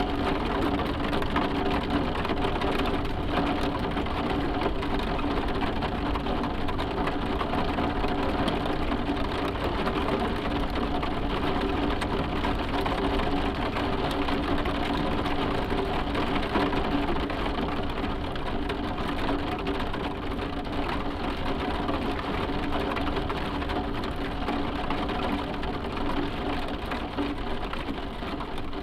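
Rain falling steadily on a roof, a dense even patter, with a faint steady hum underneath.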